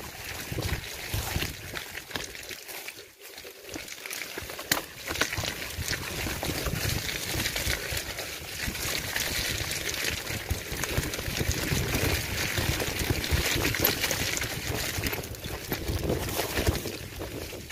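Riding noise from an off-road bike moving fast over a rough, muddy dirt trail: rushing wind on the microphone, with frequent jolts and rattles as the bike bounces over the ruts.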